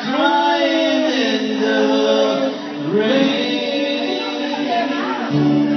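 Amateur karaoke singing into a microphone over a backing track, with long held notes.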